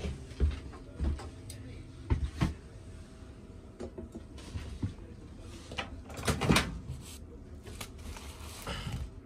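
Knocks and clatter of handling as a countertop microwave's door is opened and a cup of milk is moved about to be heated; the loudest clatter comes about six seconds in.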